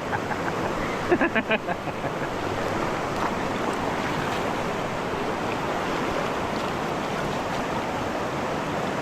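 Steady rush of whitewater in river rapids.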